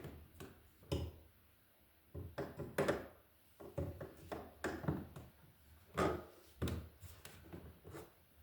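Irregular knocks, taps and short scrapes from a brass wall light fixture being handled and tightened onto its mounting bracket.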